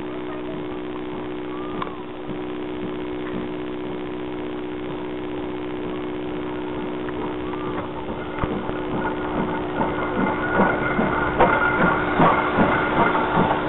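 Steam tank locomotive running past close by, quiet and steady at first, then its rhythmic beats and running gear growing loud from about eight seconds in as it draws alongside.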